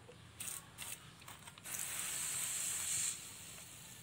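Water being poured onto the sand in a cut-off plastic bottle pot holding a cutting: a few short scuffs, then a steady hiss lasting about a second and a half from about two seconds in.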